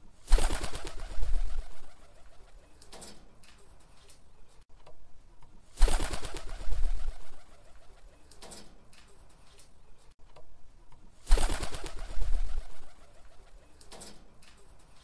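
Pigeon cooing, three loud calls about five and a half seconds apart, each lasting about two seconds, with fainter calls between them.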